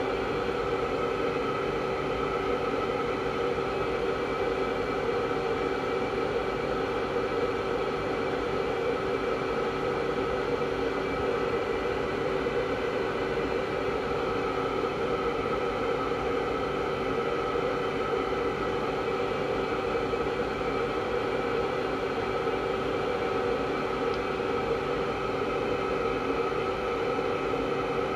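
Compressed-air aeroponic misting system running continuously: a steady hiss with a constant hum of several even tones, without change or pause.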